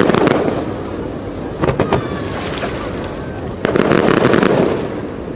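Aerial firework shells exploding. There is a boom at the start, a quick run of crackling pops about two seconds in, and another drawn-out boom near the end.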